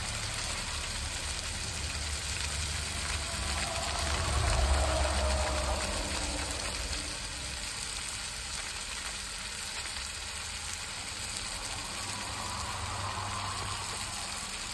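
Onion, chilli and tomato masala frying in oil in a pan with a steady sizzle, salt, turmeric and chicken masala just added. A low rumble swells and fades about four to six seconds in.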